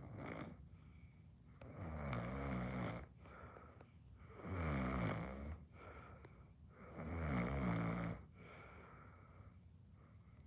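A person snoring: three loud, rumbling snores about two and a half seconds apart, with quieter breathing between them.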